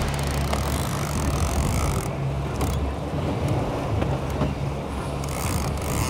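Boat engine running with a steady low hum, with wind and water hiss over it.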